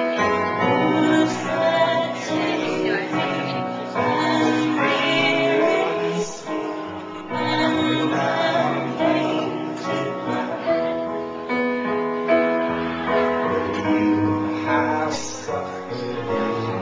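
A singer performing a song live with acoustic guitar accompaniment, holding long sung notes over the strummed chords.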